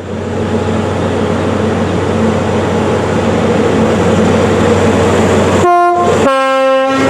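Train approaching, its running noise and a steady low hum growing louder. Near the end it sounds a two-tone horn: a short higher note, then a lower note held a little longer.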